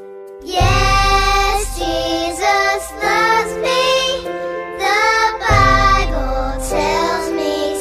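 Background music: a high, gliding melody over a soft bass that comes in about half a second in.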